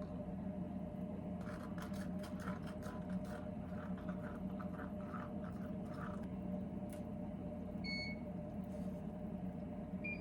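A steady low hum with a run of light clicks and taps, then a single short electronic beep near the end.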